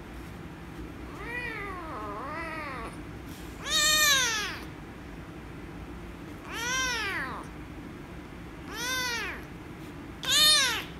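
Small orange-and-white kitten meowing loudly while being petted, which its owner takes for anger at the petting. Six meows, each rising then falling in pitch: two softer ones early, then louder ones every two to three seconds, the loudest near the end.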